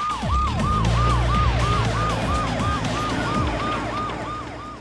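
Police car siren in a quick repeating wail, about three sweeps a second, over a low rumble. It fades away near the end.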